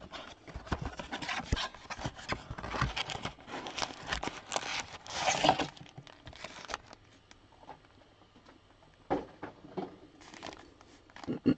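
Crinkling and tearing of trading-card packaging being opened by hand: dense rustling and tearing for about the first six seconds, then a few scattered clicks.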